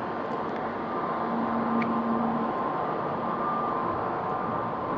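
Electric commuter train standing at an underground platform, its on-board ventilation and auxiliary equipment running with a steady hum and whir, a few faint tones held in it.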